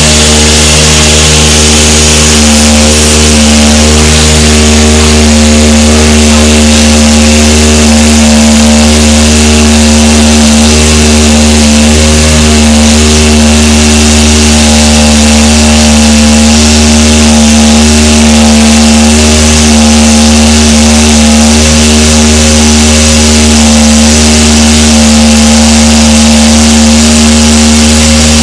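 Loud, steady mechanical drone from an engine or machine running at constant speed, its pitch holding unchanged throughout, over a hiss.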